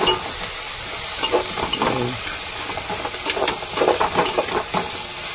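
Onions with ginger and garlic frying in hot oil in a cooking pot, sizzling steadily, while a spoon stirs them with repeated scrapes and clinks against the pot.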